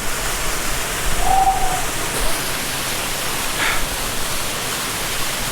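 Waterfall and rushing water making a steady, even hiss, with a brief hum-like tone about a second in.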